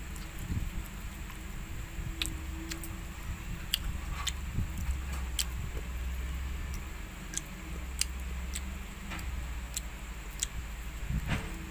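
Crunchy chewing on a large insect: sharp, irregular clicks and cracks from biting through its hard shell and legs, a few seconds apart, over a steady low hum.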